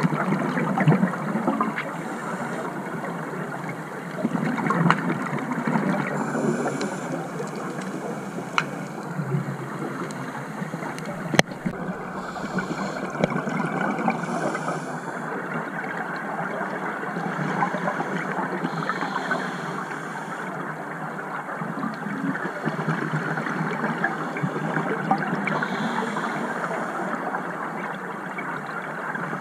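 Muffled underwater bubbling and gurgling from scuba divers' exhaled regulator bubbles, heard through an underwater camera housing, rising and falling in uneven surges. A single sharp click about eleven seconds in.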